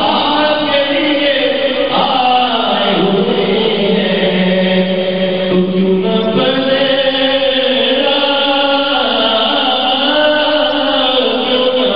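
A man singing an Urdu naat, a devotional poem in praise of the Prophet, into a microphone with no instruments. He holds long, drawn-out melodic notes, each lasting several seconds.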